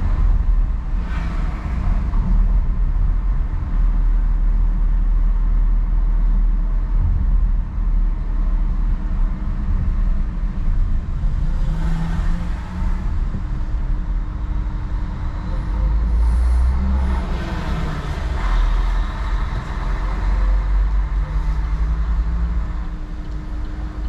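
Car driving at town speed, heard from inside the cabin: a steady low engine and tyre rumble, with other traffic passing now and then as brief swells of hiss.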